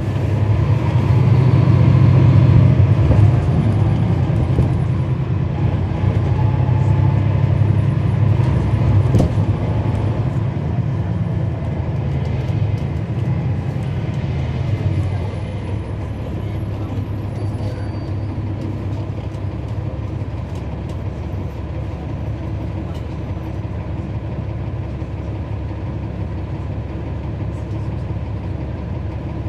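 Cummins ISL9 inline-six diesel engine of a NABI 40-SFW transit bus, heard from inside the cabin, running with a deep steady drone. About halfway through it drops to a quieter, even level.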